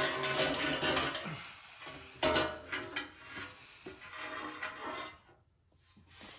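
Scraping and rubbing, then a few sharp metal clanks and clinks, from parts and tools being handled under a vehicle.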